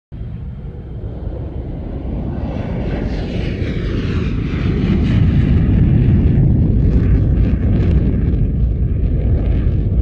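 A deep, rumbling jet-like whoosh that grows louder over the first five seconds or so and then holds steady.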